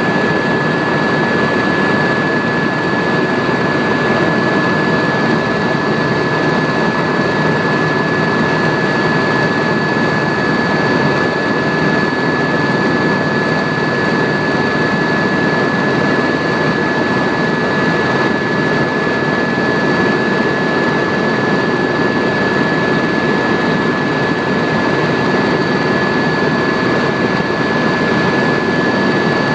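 Helicopter in flight heard from inside the cabin: a steady, loud rush of turbine engine and rotor noise with a constant high turbine whine over it.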